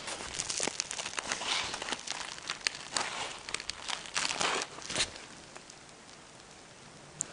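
Crisp, pan-fried toast crust crackling and tearing as a cheese-filled toasted sandwich is pulled apart by hand: a quick run of crunchy crackles that thins out after about five seconds, with one sharp click near the end.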